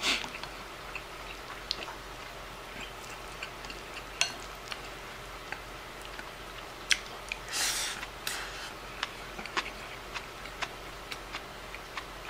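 Chopsticks clicking now and then against a ceramic rice bowl as food is picked up and eaten, light scattered taps over a quiet room hum. A short rushing noise about seven and a half seconds in.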